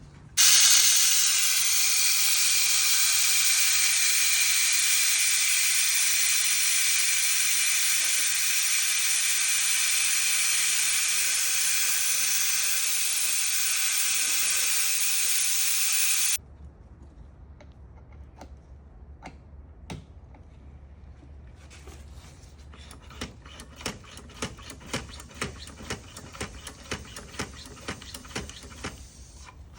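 Compressed air hissing steadily for about sixteen seconds, then cut off suddenly, as when spark plug wells are blown clean during a plug change. Later comes a quick run of light clicks.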